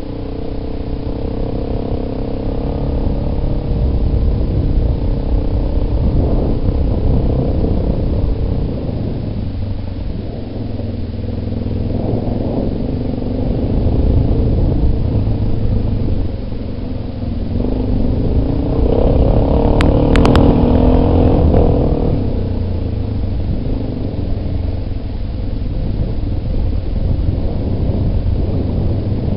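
Yamaha Big Bear ATV engine running while riding a dirt trail, its note rising and falling with the throttle. It is loudest about twenty seconds in, where a few sharp clicks are heard.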